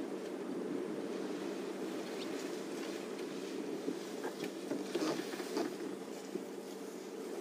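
Faint crackling and rustling of leaves and twigs as an African elephant feeds in a bush, a few scattered snaps in the middle, over a steady background hiss.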